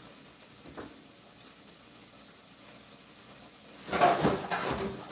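Rummaging through a low kitchen cupboard: low room tone with a faint knock about a second in, then from about four seconds in a run of clattering and rustling as things inside the cupboard are moved about.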